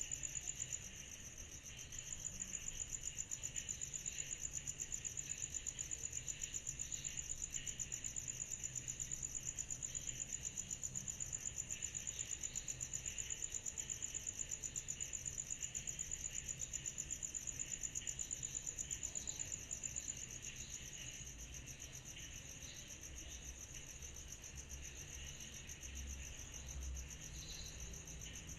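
Summer-night insect chorus: one loud insect trills a high, rapidly pulsing note over a softer, steady chorus of more insects. The loud trill breaks off briefly about a second in and stops about two-thirds of the way through, leaving the softer chorus.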